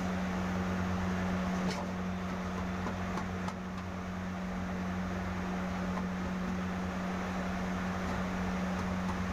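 A steady low machine hum with a hiss over it, and a faint click about two seconds in.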